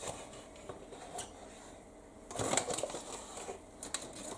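Light clicks and knocks of kitchen items being handled while a bowl and flour are got ready, with a brief louder rustle about two and a half seconds in.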